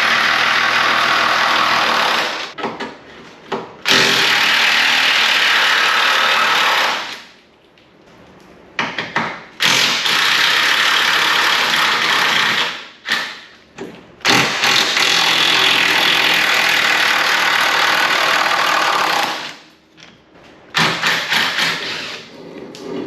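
Power impact wrench hammering on the front sway bar and end-link bolts in four long bursts of several seconds each, then a few short bursts near the end.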